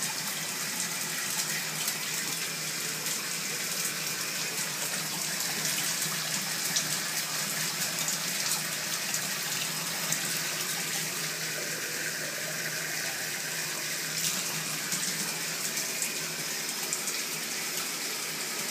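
Bathtub faucet running steadily, water pouring from the spout and splashing into the tub.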